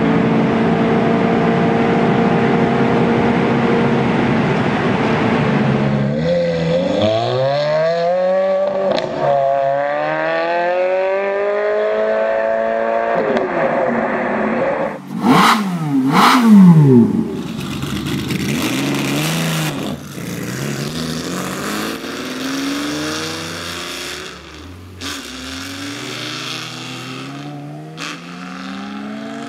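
Ferrari F430's V8 engine heard from inside the cabin, running at steady cruising revs. Then, from the roadside, an F430 accelerates through the gears, its revs climbing and dropping at each upshift, and speeds past loudly about halfway through with the pitch falling as it goes. Near the end another Ferrari accelerates hard through its gears.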